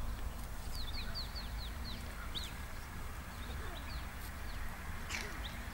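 Short, high, falling squeaks from a small animal: a quick run of about seven, then a few scattered ones.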